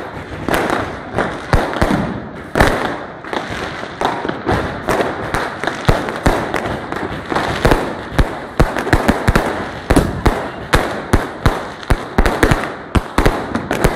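Firecrackers going off in rapid, irregular bangs, often several a second, with a crackling noise between the bangs.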